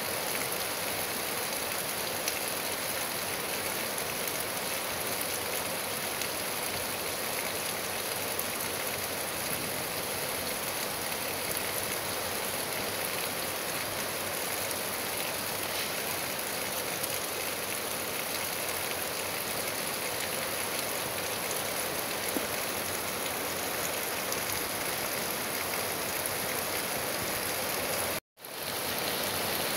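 Steady rain falling, an even hiss without any distinct drops or tones, which cuts out for a split second near the end.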